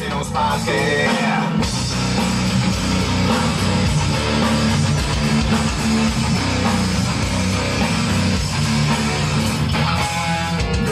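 Instrumental rock passage with electric guitars and bass guitar playing together, with no singing. The sound fills out about two seconds in.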